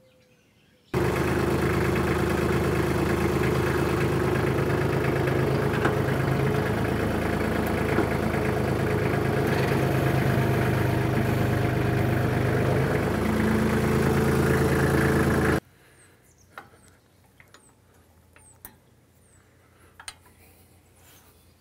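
Tractor engine running steadily for about fifteen seconds while the tractor is brought up to a rolling cultivator to hook on, then it cuts off suddenly. A few faint light metal clicks follow, from the quick-hitch's spring latch being worked.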